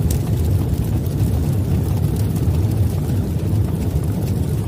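Deep, steady rumble from a logo-intro sound effect, holding at a constant level.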